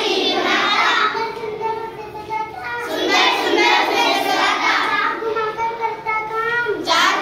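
A class of children chanting a poem together in unison, in sing-song phrases with short breaks between lines.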